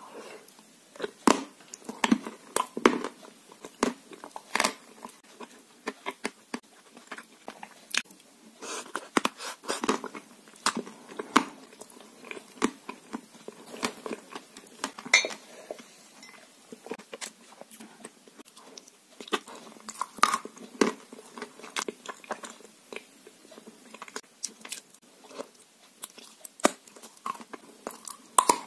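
Close-up mouth sounds of a person biting and chewing a sticky chocolate cream, with many irregular wet clicks and smacks throughout.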